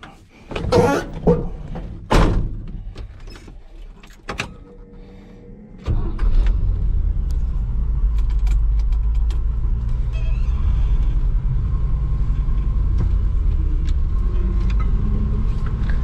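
A few knocks and short rustling bursts, then about six seconds in a truck engine comes on suddenly and runs with a steady low rumble.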